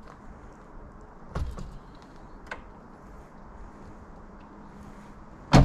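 Two knocks over a low steady background: a dull one about a second and a half in and a sharper, louder one near the end, with a small click between them.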